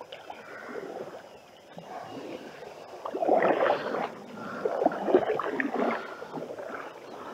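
Canoe paddles stroking through creek water, swishing and splashing, louder from about three seconds in, with a few sharp knocks.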